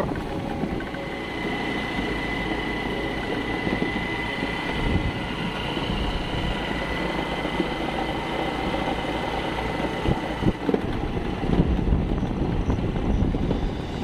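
Scooter engine running at a steady cruise with wind rushing over the microphone, a thin steady high tone sounding through most of it.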